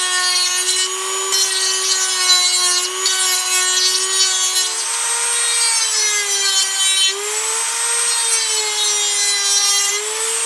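Dremel rotary tool with a sanding drum running at high speed, sanding a bevel into the inside edge of a cellular PVC pipe. It gives a steady whine that holds one pitch, steps slightly higher about halfway through, and dips briefly a couple of times.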